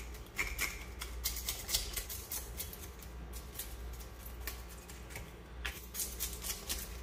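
Scales being scraped off a whole fish: a rapid, irregular run of short scratchy clicks, several a second.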